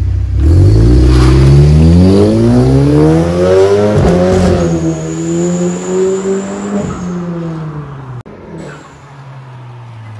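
Skoda Octavia 1.8 TSI, a remapped turbocharged four-cylinder with a Borla twin exhaust, accelerating hard away. The engine note climbs in pitch for about four seconds, dips briefly, pulls on again, then fades as the car moves off into the distance.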